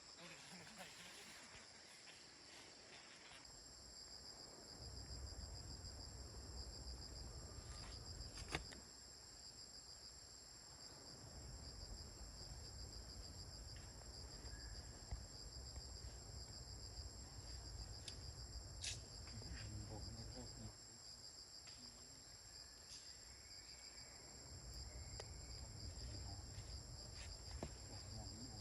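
Insects chirring in a steady, high, pulsing drone, with a low rumble that comes and goes and a few sharp clicks.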